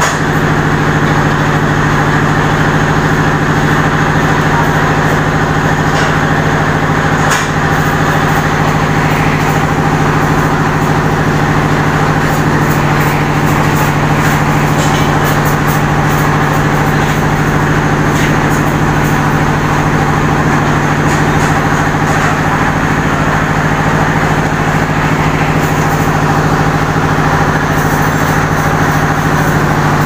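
Steady mechanical hum with a low drone under a dense rushing noise, unchanging throughout.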